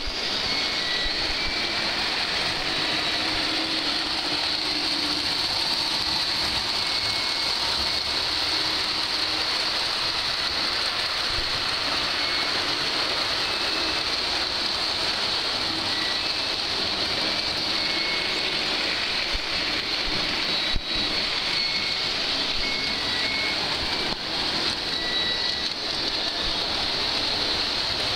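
Lionel O-gauge toy trains running on three-rail tinplate track: a steady whirring rattle of motors and wheels. A single brief knock about three-quarters of the way through.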